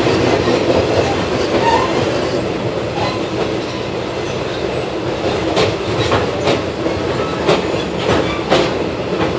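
Passenger train running at speed, heard from a coach vestibule: a steady rumble of wheels on rail. From about halfway through comes an uneven run of sharp clicks as the wheels cross rail joints.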